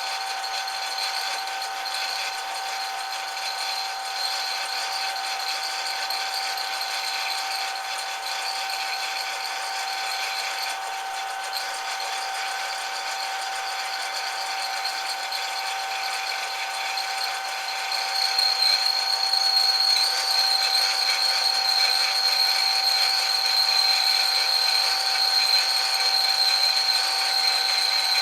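Metal lathe running steadily with a fixed high whine and a rattle; about two-thirds of the way through it gets louder and the whine sharpens.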